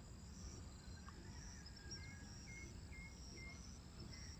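Faint background noise with a row of four short, faint high chirps about two to three and a half seconds in.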